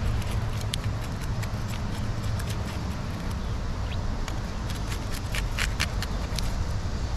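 Steady low rumble with irregular short clicks and scrapes, several in quick succession near the end, as a hand-held object is worked against a wet rock.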